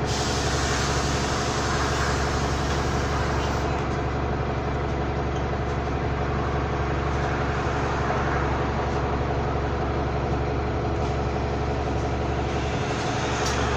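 A bus running on its route, heard from on board: a steady engine and drivetrain drone carrying several constant humming tones. These are the unusual noises this particular bus makes.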